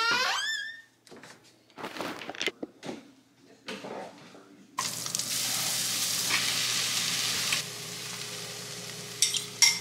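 A toddler's brief high-pitched wail at the very start, then food sizzling in a hot frying pan of chopped vegetables as beaten eggs are poured in. The sizzle starts suddenly about halfway through and turns quieter a little later.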